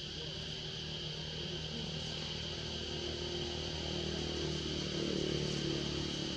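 A motor engine running with a steady low hum that grows a little louder about five seconds in, over a steady high insect drone.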